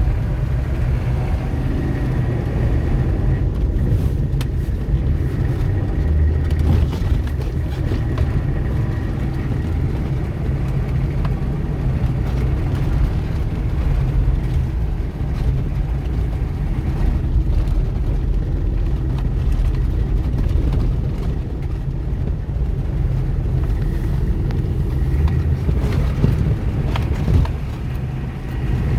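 H1 Hummer under way in snow: a steady low engine and drivetrain drone, with a few light knocks here and there.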